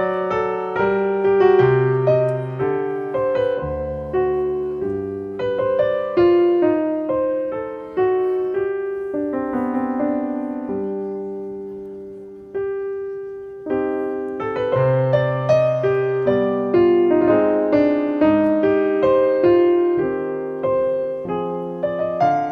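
Background piano music: a slow melody of single notes that each ring and fade, thinning out and growing quieter for a few seconds midway before the tune picks up again.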